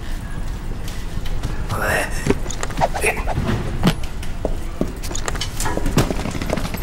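Baggage carousel sound effects: a steady low rumble of the moving belt with scattered clicks and knocks of suitcases. A short rising sound comes about two seconds in.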